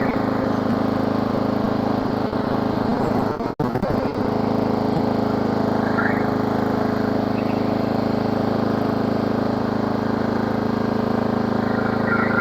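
Riding lawn mower's small petrol engine running steadily while the mower is driven, with a momentary break about three and a half seconds in.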